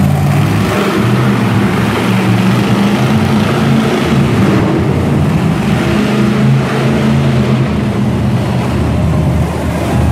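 Monster truck engine running loud and steady, its pitch shifting a little with the throttle.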